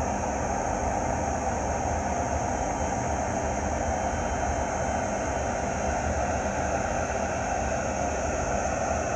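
Two Transnet Class 20E electric locomotives hauling a freight train past: a steady drone with a thin high whine over it, unchanging throughout.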